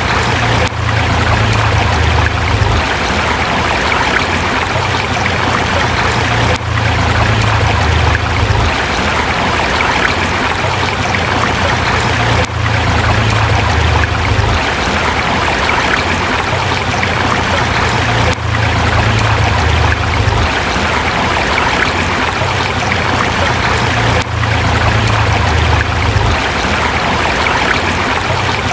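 River water flowing over rocks: a steady rush of running water, with a low rumble underneath that swells and fades. The level dips briefly about every six seconds.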